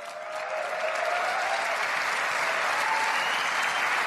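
Large audience applauding and cheering, swelling over the first second and then holding steady, with a few whoops over it.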